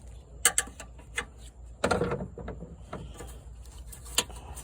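Plastic push clips being pried out of a plastic engine-bay cover with a flat-tip screwdriver: a few sharp clicks and snaps, with a rougher scraping rustle about two seconds in.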